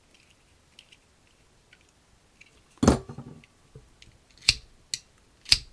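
Small hand-handling sounds of a Zippo butane lighter insert as its flint spring screw is tightened back down: a few quiet seconds, then a soft knock and several short, sharp clicks near the end.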